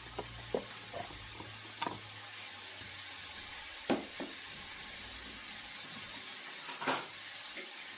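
Sofrito and garlic sizzling in a pot of seasoned stew, a steady hiss broken by a few short knocks and scrapes, the loudest near the end.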